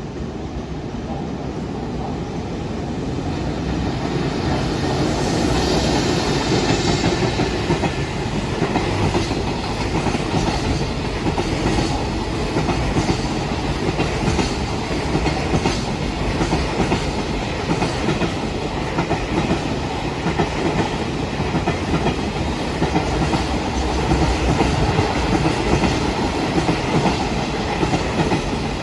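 Container freight train hauled by an electric locomotive passing at speed. The sound builds over the first few seconds, then the wagons' wheels click rapidly and rhythmically over the rail joints as the long train goes by.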